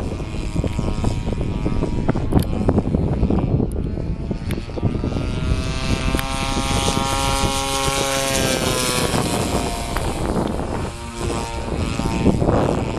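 DLE-55 single-cylinder two-stroke gasoline engine and propeller of a large radio-controlled aerobatic plane running hard to hold a hover, under heavy gusty wind noise on the microphone. The engine's buzzing tone comes through most clearly from about five to nine seconds in, wavering and dropping slightly as the throttle is worked.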